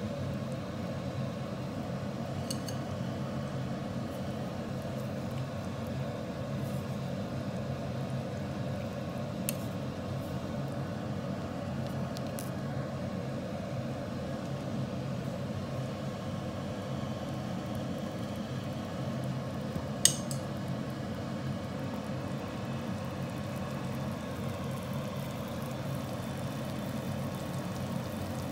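A pot of ramyun broth simmering on the stove, with a steady low hum. A few faint clinks come through, the sharpest about twenty seconds in.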